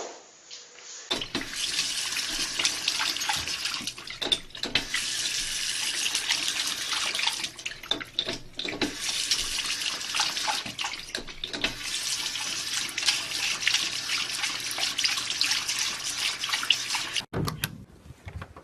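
Water running and splashing steadily, starting suddenly about a second in and cutting off abruptly near the end.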